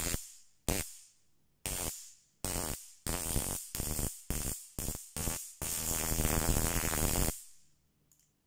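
Electric arc of an SLJ 288 flashlight stun gun crackling across its electrodes in repeated bursts: a string of short zaps, then one longer zap of about a second and a half near the end.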